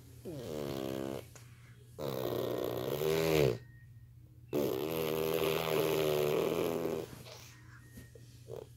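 Snoring: three long snores with a wavering pitch, each lasting one to two and a half seconds with short pauses between, and a brief fainter one near the end.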